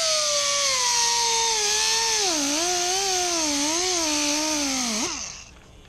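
Handheld power tool stripping paint off a chrome bicycle wheel rim: a high motor whine that sags in pitch and wavers as the tool is pressed against the metal, over a hiss of abrasion. It stops about five seconds in.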